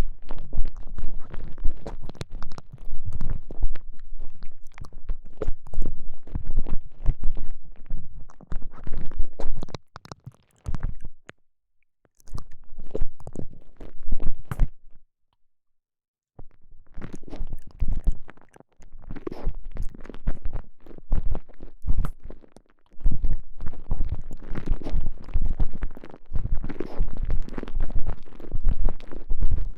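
Soft elastic TENGA Egg sleeve squeezed and worked around a microphone inside it, giving a dense run of irregular crackles and squelches with a heavy low end. It stops briefly twice, about 11 and 15 seconds in.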